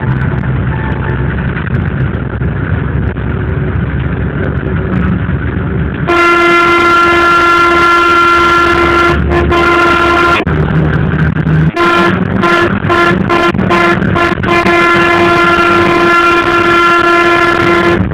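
Running rumble of a moving vehicle. From about six seconds in, a loud horn sounds on one steady pitch, held for several seconds at a time with a few short breaks and a run of quick repeated honks in the middle.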